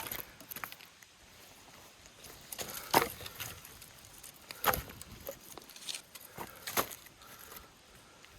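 Scattered sharp knocks and clacks of objects being handled, with three louder ones about three, four and a half, and almost seven seconds in.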